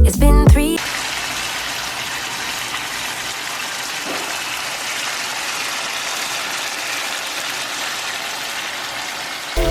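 Background song cutting off less than a second in, then water running steadily from a kitchen tap.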